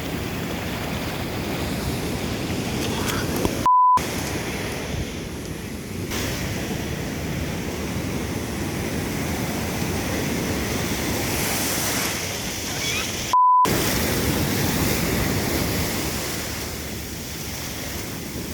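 Ocean surf washing onto the beach in a steady hiss that swells and eases. Twice, about four seconds in and again about thirteen seconds in, a short loud steady beep cuts in with everything else muted, as a censor bleep does.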